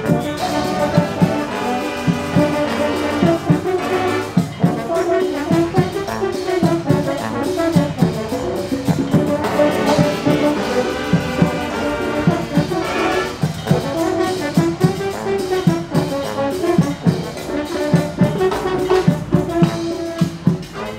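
Brass band music: horns holding and moving between notes over a steady drumbeat.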